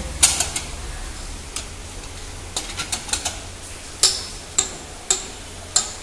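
Metal clinks of a cross-shaped wheel brace on the wheel nuts as a front wheel is being unbolted: a string of separate sharp clinks with a short ring. There is a quick cluster about halfway through and a few louder clinks later on.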